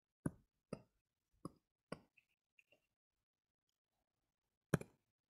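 Computer mouse clicking: four separate clicks in the first two seconds, then a quick double click near the end, all faint.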